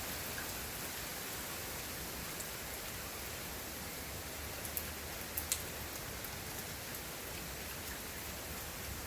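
Rain falling steadily as an even hiss, with a few sharper drop ticks about halfway through.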